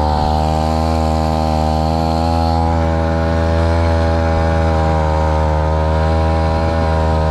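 Small grass-trimmer engine driving a long-tail propeller shaft on a wooden boat, running steadily under way with a slight wobble in pitch.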